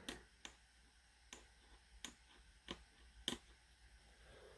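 Near silence: room tone with about five faint, irregularly spaced clicks.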